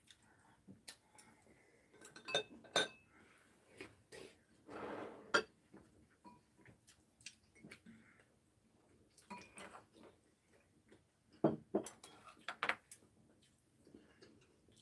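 Metal fork and chopsticks clinking against ceramic bowls and plates while eating at a table: scattered light clinks and taps, bunched in a few places.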